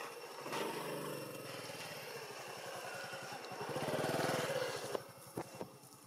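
A motor vehicle's engine passes by, getting louder to a peak about four seconds in, then fading away by about five seconds. A few sharp clicks follow near the end.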